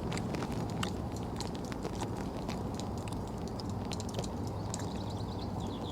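A person chewing a mouthful of pounded yam and egusi soup: soft, irregular mouth clicks and smacks over a steady low background hum.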